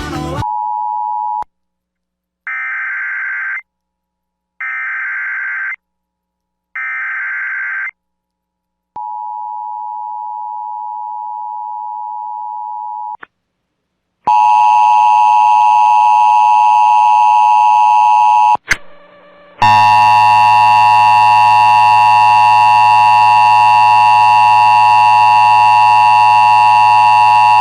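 Emergency Alert System tones: after a short beep, three one-second screeching SAME data bursts of the alert header, then a steady single tone of about four seconds. Then comes the loud, harsh two-tone EAS attention signal, which cuts out briefly about two-thirds in and resumes, announcing a tornado warning.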